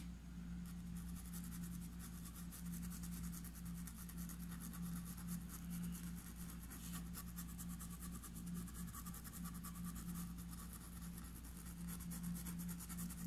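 Paintbrush bristles rubbing and dabbing on fabric stretched in an embroidery hoop: many quick, light scratchy strokes as spots of acrylic paint are worked onto the cloth. A steady low hum runs underneath.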